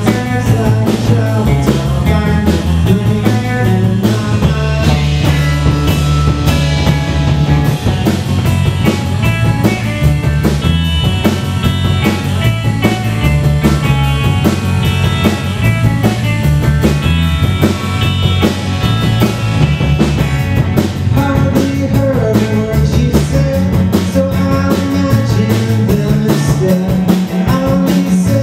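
Rock band playing live: drum kit, electric bass and electric guitar with a steady beat and a bass line moving from note to note.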